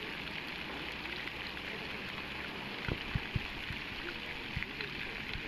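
Steady splashing of a pond's fountain jet falling back onto the water, with a few short low thumps about halfway through.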